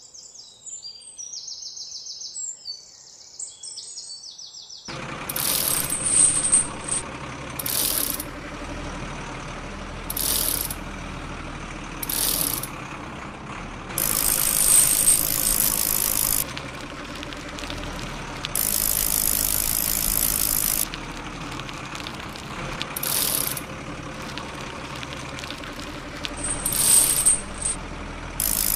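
Mechanical ratcheting and clicking from a toy bicycle's chain and freewheel while it tows a toy dump truck on a chain. From about five seconds in there is a steady drone with repeated bursts of hiss.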